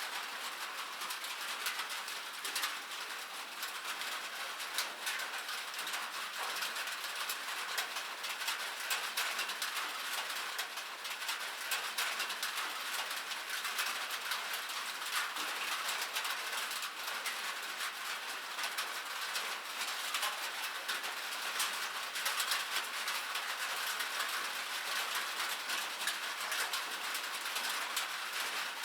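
Rain falling on a metal surface: a steady, dense patter of drops ticking on metal.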